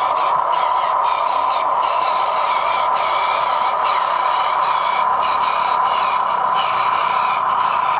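Electric motor and gearbox of a radio-controlled dump truck whining steadily as it drives.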